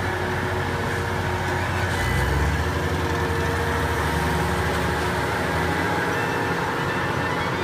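Diesel engine of a compact track loader (tracked skid steer) running steadily while it moves and dumps a bucket of topsoil. Its note shifts and gets a little louder about two seconds in.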